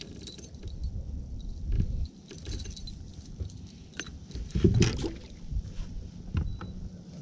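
Metal clinks and jangles of an Alabama umbrella rig's wire arms and jig heads being handled while a small bass is unhooked, with scattered light knocks and a louder thump a little before five seconds in.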